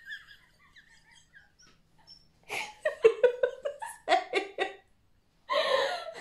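Women laughing: a run of short, rhythmic laughs from about two and a half seconds in, then a louder burst of laughter near the end.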